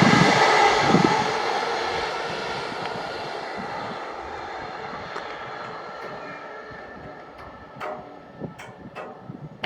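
A train running past close by, its rumble and rail noise fading steadily as it moves away. A few short sharp clicks come near the end.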